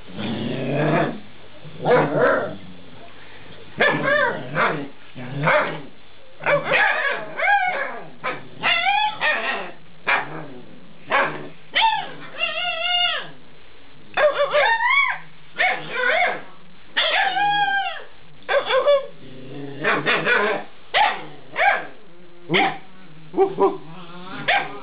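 Eight-week-old Alaskan Malamute puppies 'talking': a long string of short yips, barks and little howling calls, one or two a second, many rising and falling in pitch.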